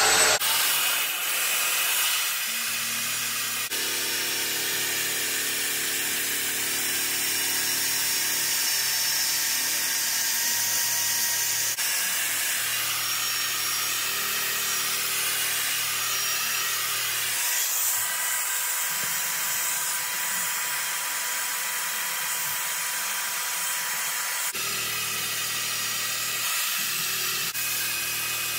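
Electric drill spinning a wire cup brush against a rusty steel chainsaw guide bar, scrubbing off surface rust. A steady whirring, scraping hiss that shifts in tone a few times.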